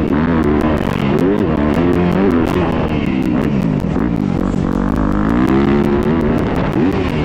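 Motocross bike engine heard from an onboard camera, its pitch climbing and dropping again and again as the rider opens and closes the throttle over the track.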